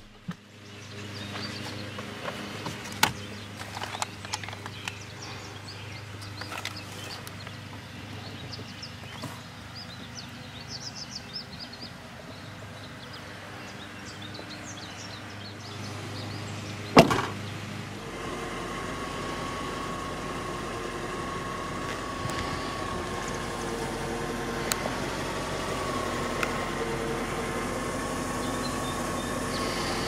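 Paper rustling and small handling clicks. About 17 seconds in, one sharp, loud thump comes from the composite trunk lid of a 2002 Ford Thunderbird shutting. After that comes a steady background hum with a faint, thin steady whine.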